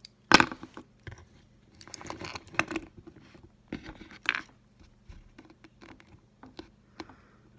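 Small clicks, taps and scrapes of plastic and metal parts being handled: the gearbox lid being worked off an HO-scale model locomotive chassis, with a small screwdriver knocking and being set down on a tabletop. The sharpest knock comes about half a second in.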